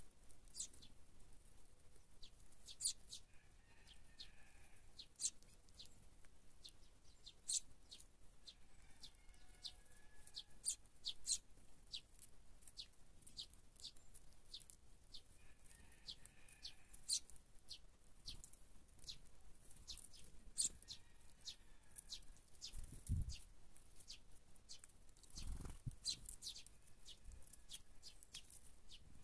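Sparrows feeding on scattered corn: faint, short, sharp high chirps and clicks at irregular intervals throughout, with two low thumps late on.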